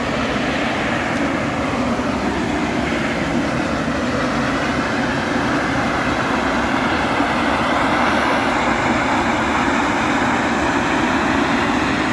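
Steam jetting from an ausol, a geothermal fumarole: a loud, steady rushing hiss that grows a little louder about eight seconds in.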